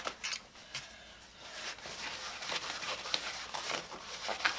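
Cloth rubbing and wiping over a vinyl meter bag, a steady rustle that picks up after about a second and a half, with a few light clicks.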